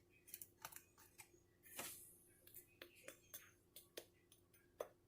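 Faint, irregular small clicks and taps, about a dozen over a few seconds, with a short soft rustle about two seconds in: small objects being handled at the table.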